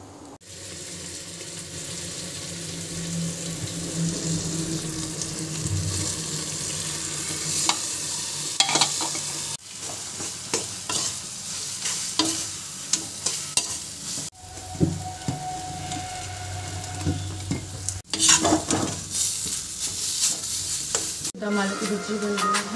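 Spatula stirring and scraping a masala frying in oil in a kadai, sizzling, with frequent small clicks of metal on the pan. The sound comes in several short clips with abrupt cuts between them.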